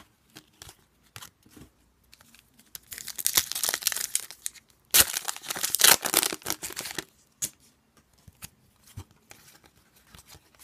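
Foil hockey card pack wrapper being torn open and crinkled by hand, in two noisy bursts about three and five seconds in, the second the louder. Light clicks and taps of cards being handled come before and after.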